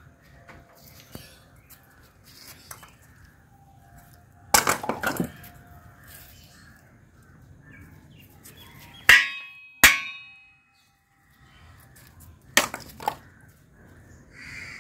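Dried coconut halves slammed hard onto concrete ground, giving sharp cracking knocks: a quick cluster of several about a third of the way in, two very loud single cracks a little past halfway, and two more near the end. The knocks are what loosen the dried copra kernel from the shell.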